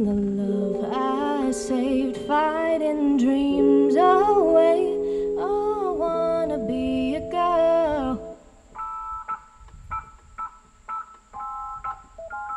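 Band music in an instrumental passage: a lead melody line with bends and vibrato plays over held keyboard and bass chords. About eight seconds in it drops to a quiet passage of short, repeated guitar and keyboard chords.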